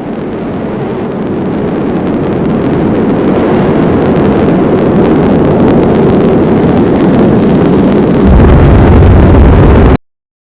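Loud storm wind sound effect, an even rushing noise that grows steadily louder, turns heavier and deeper about eight seconds in, then cuts off suddenly.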